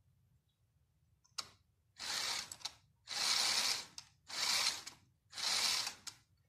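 A single click, then four short spells of hand-cranking a LEGO Technic plastic gear train, each under a second, rattling as it spins a LEGO Power Functions M motor used as a dynamo.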